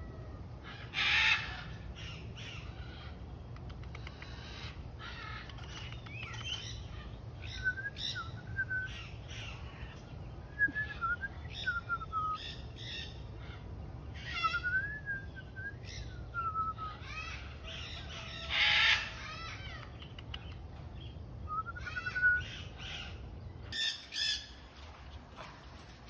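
Oriental pied hornbill giving harsh, cawing calls, the two loudest about a second in and about two-thirds of the way through, with shorter calls and wavering whistled notes in between.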